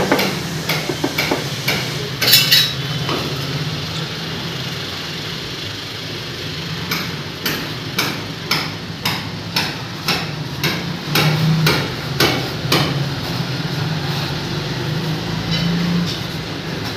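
Mason's trowel knocking and scraping during tile setting, with a run of sharp taps about two a second through the middle, as wet cement mortar is worked from the pan onto the back of a ceramic tile. A steady low hum runs underneath.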